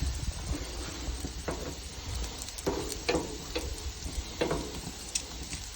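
Dim sims frying on a gas barbecue hotplate: a steady sizzle with a few sharp crackling pops of spitting oil.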